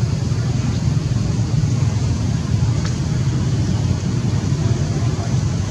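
Steady low rumble of outdoor background noise, even throughout with no distinct events.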